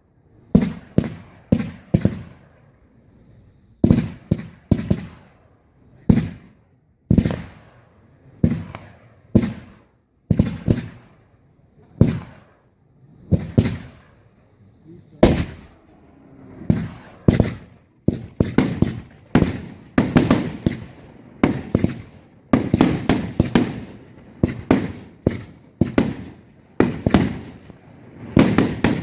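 Aerial fireworks shells bursting in a series of sharp bangs, each trailing off in a fading echo. The bangs come a second or two apart at first, then much faster and overlapping from about two-thirds of the way in.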